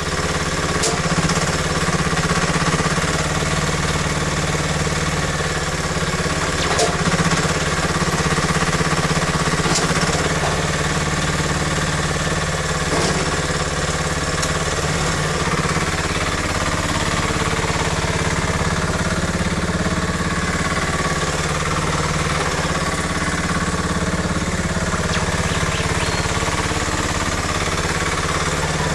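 A UHI UME10 mini excavator's engine running steadily with a hard, knocking beat.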